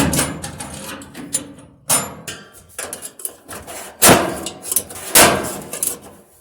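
Knocks, bangs and rattling of a washing machine's cabinet panels being handled and worked loose by hand during disassembly. The loudest bangs come at the start and about two, four and five seconds in.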